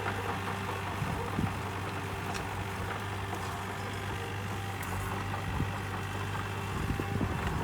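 Komatsu PC28UU-2 mini excavator's diesel engine running at a steady speed during a burn test, with a few light knocks.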